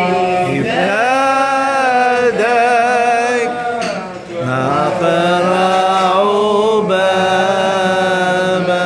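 A man's voice chanting a liturgical hymn unaccompanied, in long held phrases with slides and wavering ornaments, pausing briefly for breath about four and seven seconds in.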